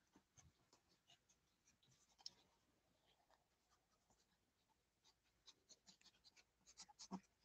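Faint, irregular scratchy clicks and rustling from small pets scuffling on a floor mat, growing denser in the last two seconds.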